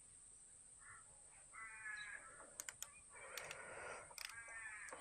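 Faint crow calling twice, harsh drawn-out caws, with a few sharp metallic clicks in between and at the end.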